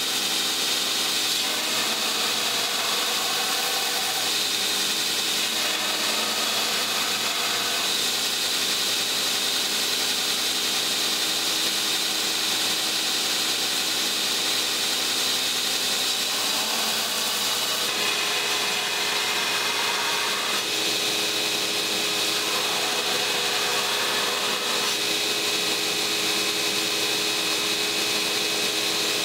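Belt grinder running steadily while a hardened, tempered pattern-welded steel blade is ground against the abrasive belt. The grinding sound shifts every few seconds as the blade is worked on the belt.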